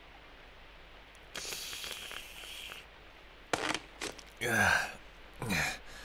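A man's long breathy exhale, then a few mouth clicks and two short low vocal sounds falling in pitch, like a sighing hum.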